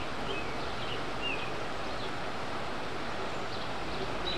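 Creek water rushing over shallow rocky riffles in a steady wash, with birds giving short chirps through it.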